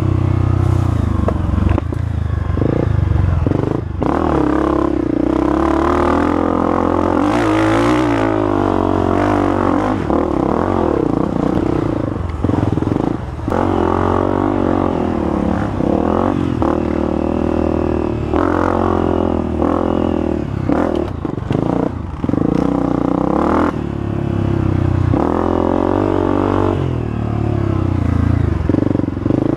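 Honda CRF250F's single-cylinder four-stroke dirt bike engine under way, its note rising and falling over and over as the throttle is opened and closed.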